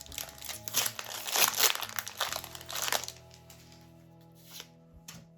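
Crinkling of a foil Pokémon booster-pack wrapper for about three seconds, then only background music.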